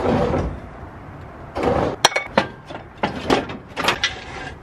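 Steel lifting chain and hook clinking and rattling: a string of sharp metallic clinks about half a second apart in the second half. A short burst of noise comes first.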